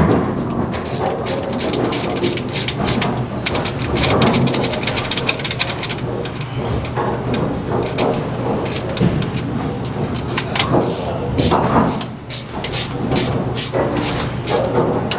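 Bowling pinsetter machinery running with a steady low hum and many irregular metallic clicks and clanks.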